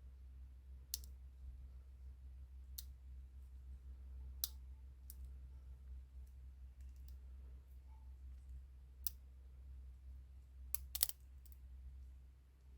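Sparse, light clicks and taps of a small hard resin casting being handled, about seven over twelve seconds at irregular spacing, with a quick pair near the end, over a low steady hum.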